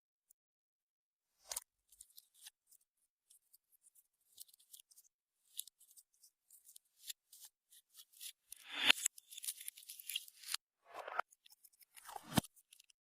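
Clear slime being pressed and stretched by hand, giving short sticky clicks and small air pops. They come sparsely at first, then faster and louder for a couple of seconds from about eight and a half seconds in, with another loud burst near the end.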